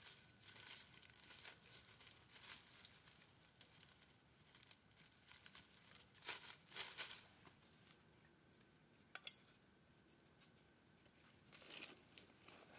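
Faint, irregular rustling and crackling, louder for about a second some six seconds in, with a single sharp click about nine seconds in.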